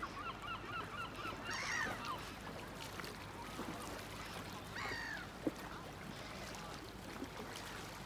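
Large water birds calling: a quick run of short yelping notes at the start, then two loud, drawn-out calls, one a little under two seconds in and one about five seconds in.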